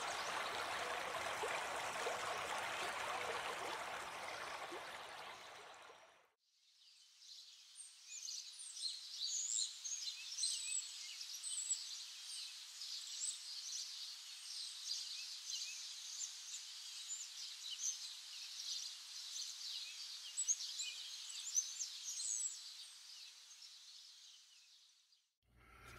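Running water as a steady hiss that fades out after about five seconds. After a short gap, many birds chirp and sing in quick high calls, fading in and then fading out near the end.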